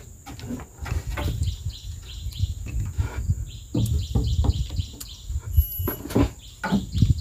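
Irregular knocks and clatter of kitchen work while sambal ingredients are prepared, with birds chirping in the background.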